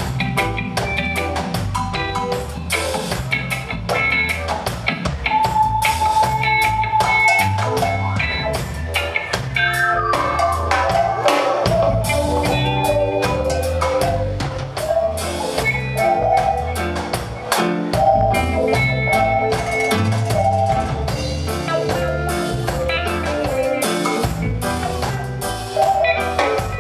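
Live band playing an instrumental passage: electric guitar melody over drum kit and bass guitar, with an upward-sliding guitar note about ten seconds in.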